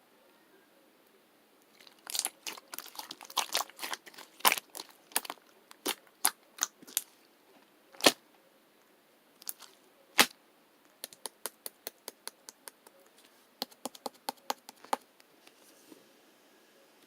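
Slime being squeezed and worked by hand, giving a run of sharp wet pops and clicks. The pops come thick and fast at first, then thin out into a quick string of small clicks and a few last pops.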